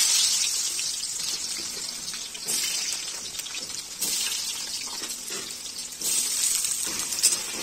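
Potato cubes frying in hot oil in a kadhai, a steady sizzle. It flares up sharply about three times, as more pieces are dropped into the oil.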